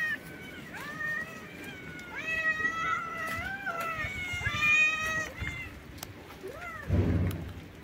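Stray cats meowing over and over, with about six drawn-out meows that rise and fall in pitch. They are hungry cats begging for food. A dull low thump comes near the end.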